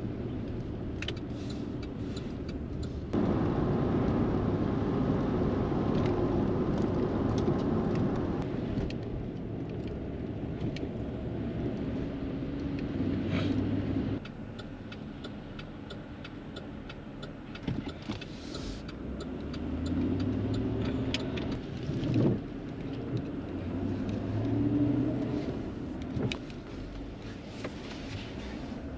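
Car engine and road noise heard from inside the cabin while driving on a wet road. It gets louder as the car speeds up about three seconds in and drops about fourteen seconds in as the car slows and stops. Near the end the engine rises and falls a few times in short bursts.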